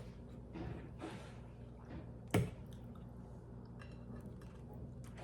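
A person chewing food close to the microphone, with soft wet mouth sounds and one sharp click or crunch about two and a half seconds in, over a steady low hum.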